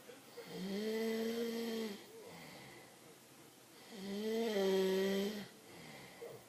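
A man snoring in his sleep: two long snores about three and a half seconds apart, each about a second and a half long with a steady pitch, and quieter breathing between them.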